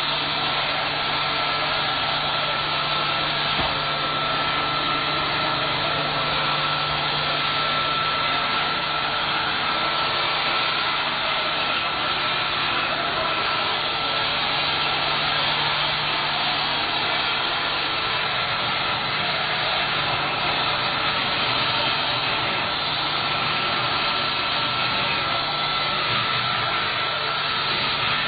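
Vacuum cleaner running steadily: a constant motor whine over the rush of air, with no change in speed.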